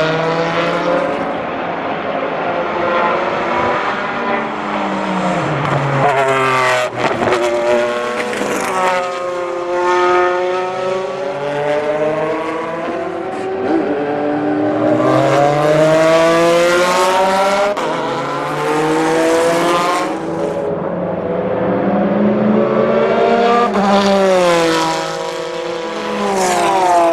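Porsche 996 GT3 RSR's flat-six racing engine at full effort, its pitch climbing and falling again and again as the car accelerates, shifts gear and brakes.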